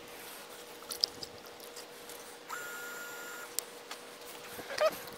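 Air bubbles gurgling and popping up through red coolant in a filler funnel as air is bled out of a Toyota Prius cooling system: a few soft pops and clicks over a faint steady hum. A steady tone sounds for about a second in the middle.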